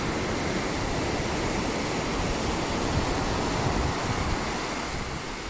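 Ocean surf breaking and washing up the beach: a steady rush that eases a little near the end.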